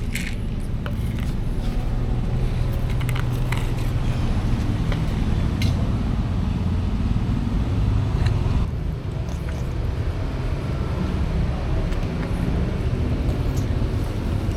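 A steady low rumble, like road traffic or a running engine, with scattered small clicks and ticks over it.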